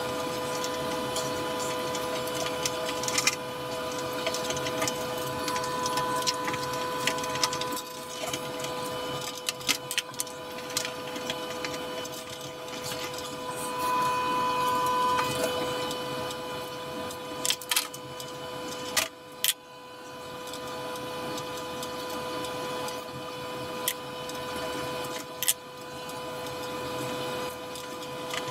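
Steady, even hum of a small electric motor at a fixed pitch, with scattered sharp clicks and knocks as a silicone tube and metal hose fitting are handled.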